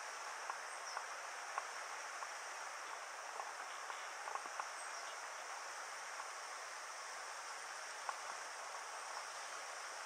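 Mountain river running steadily over rocks, a continuous rushing hiss, with small scattered ticks of water on stone.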